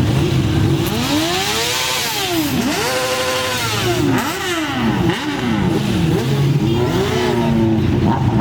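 Motorcycle engine idling, then revved up and down repeatedly: two long rev swells from about a second in, followed by a run of quicker, overlapping blips of the throttle.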